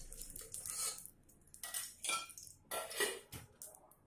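Hand scraping and wiping the inside of an aluminium pot, in several short rasping strokes, the loudest about three seconds in.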